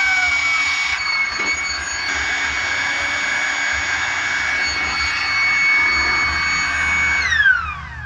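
Handheld electric blower running steadily with a high whine while blowing dust out of a desktop computer case. About seven seconds in it is switched off, and the whine falls in pitch as the motor spins down.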